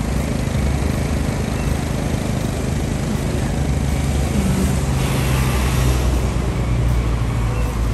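Car engine and road noise heard from inside a moving car's cabin: a steady low hum with engine tones that shift a little in pitch about four seconds in.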